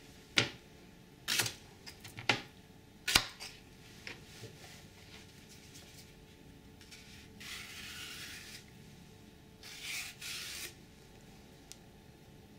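Knife chopping through a green plantain onto a plastic cutting board: four sharp knocks in the first few seconds. Later, two scraping stretches of about a second each as the tough plantain peel is slit and pulled away.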